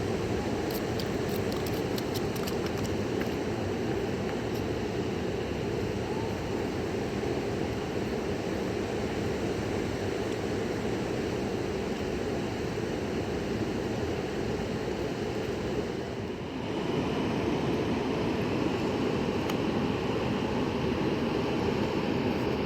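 Steady rush of a fast-flowing river, dipping briefly about sixteen seconds in and then going on a little louder.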